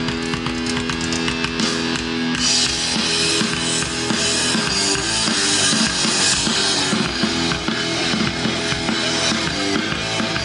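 Live rock band playing an instrumental passage: a held chord, with drums and cymbals coming in about two seconds in.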